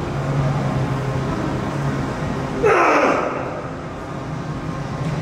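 A lifter's loud strained grunt on a heavy barbell deadlift, dropping in pitch, about two and a half seconds in, over a steady low hum.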